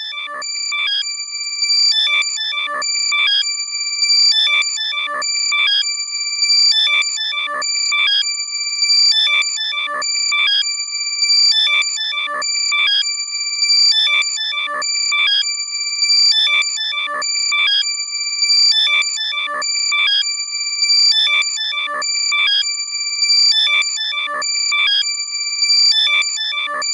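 Loud, compressed electronic alert sound for locating lost AirPods, played in the right channel only: steady high tones under a fast chirping pattern that repeats about every two seconds.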